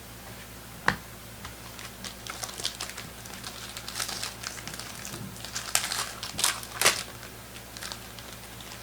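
Crinkling and rustling of plastic as trading cards are handled, in a series of short crackly crinkles, the loudest near the end, after a single sharp click about a second in.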